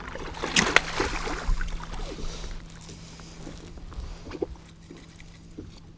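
Water splashing and sloshing at the side of a fishing boat, loudest about a second in, then scattered light knocks and taps against the boat, over a steady low hum.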